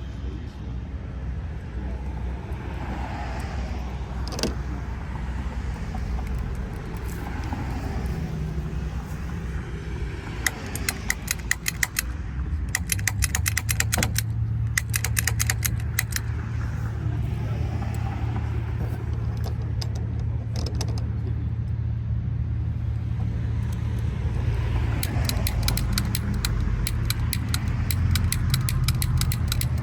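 Pick gun snapping rapidly against a padlock's pins in two runs of sharp metallic clicks, one midway and one near the end, over the steady hum of a running vehicle engine.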